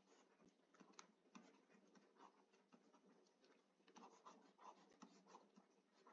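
Near silence with faint taps and scratches of a stylus writing on a tablet: a few scattered soft ticks, more of them from about four seconds in.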